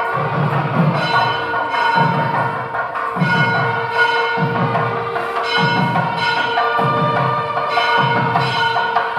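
Background music with bell-like tones held over a steady percussion beat, about one stroke a second.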